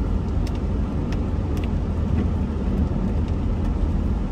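Steady low rumble of a car driving on a rain-wet road, heard from inside the cabin, with a few faint ticks in the first couple of seconds.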